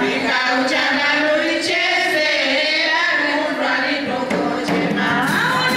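A group of women singing together in chorus, with a few sharp percussive hits now and then.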